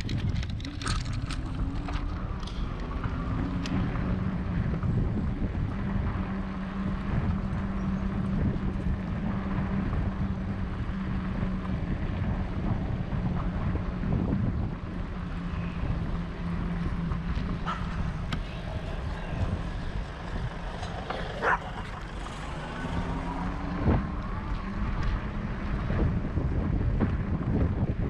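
Wind buffeting the camera microphone on a moving bicycle, with the hum of motor traffic passing alongside for much of the first half and again near the end. A couple of sharp clicks come late on.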